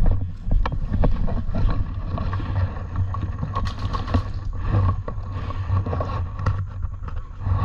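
Heavy, uneven low rumble of wind and movement on a body-worn camera's microphone, with scattered sharp clicks and knocks throughout.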